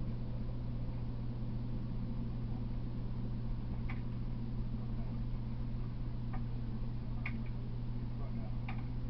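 Steady low hum with a few brief, faint ticks scattered through it.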